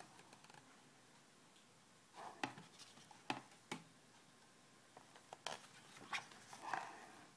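Pages of a Shutterfly hardcover photo book being turned by hand: faint rustling and sliding of the stiff pages with a few light ticks, starting about two seconds in.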